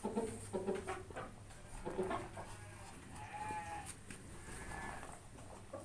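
Faint farm-animal calls: a few short pitched calls, the clearest about halfway through, among faint clicks and rustling.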